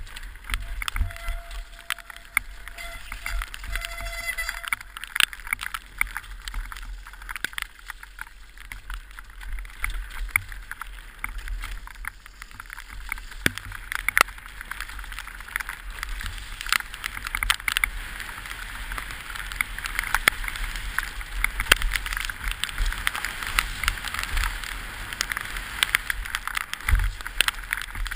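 Orange 223 downhill mountain bike ridden at speed down a wet, rough trail, heard from a helmet camera: constant rattling knocks and clicks from the bike over the bumpy ground, over a steady rush of tyre and wind noise.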